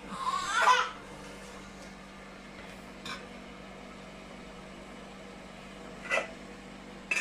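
Faint steady kitchen hum. Over it come a light click about three seconds in and a sharper ringing clink about six seconds in, from a glass bowl being set down inside a stainless-steel steamer pot.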